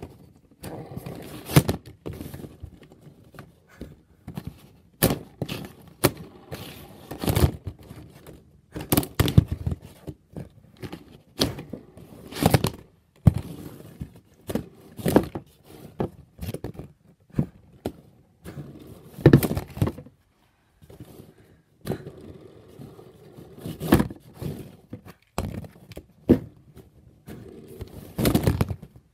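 Plastic K'nex robots being shoved into each other by hand, clattering and knocking together and scraping across cardboard: irregular knocks and rattles in clusters, with short pauses between.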